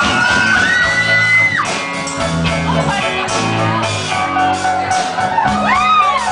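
Live band with piano and drums playing, while audience members shout and whoop over the music in rising-and-falling calls.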